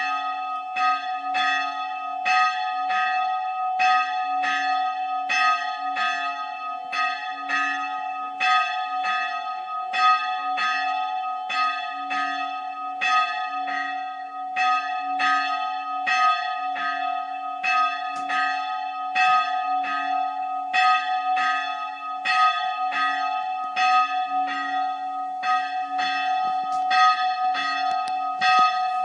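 The bell of the Old Island Church on Spiekeroog ringing. It is struck in a steady, even rhythm, a little faster than once a second, and its tone rings on continuously between strokes.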